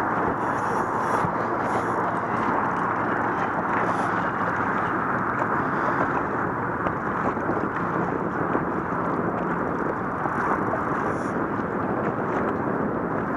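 Steady rushing noise of wind and choppy water around an open boat, with no distinct events.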